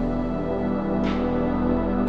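Ambient background music with sustained, steady tones and a soft swish about a second in.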